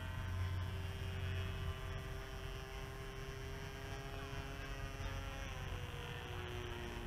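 A PAW 1cc model diesel engine running in a small radio-controlled airplane in flight, a steady drone whose pitch dips slightly about six seconds in. A low hum sits under it for the first couple of seconds.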